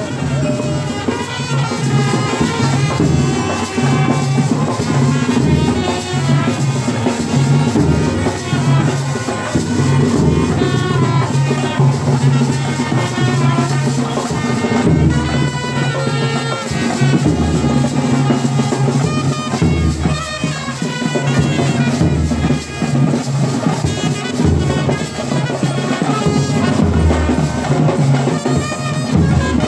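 Procession brass band playing a tune on trumpets over drums.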